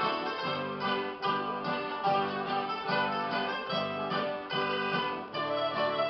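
Live folk ensemble of mandolins and accordion playing a schottische (scottish) dance tune, the plucked mandolins over held accordion notes and a steady bass-and-chord beat.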